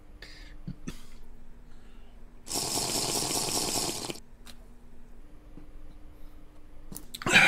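A man sipping an energy drink from an aluminium can, a slurping hiss that lasts about a second and a half, with a couple of light clicks from the can before it. A short, louder hiss of breath comes near the end.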